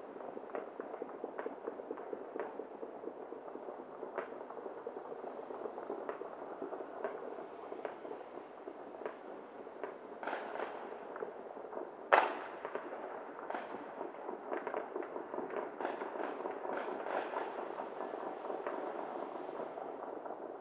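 Many fireworks and firecrackers popping and cracking over a steady background crackle, with one much louder sharp bang about twelve seconds in.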